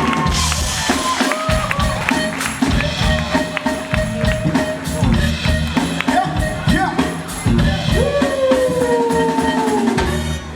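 Loud music track with a heavy beat and vocal lines, cutting off near the end.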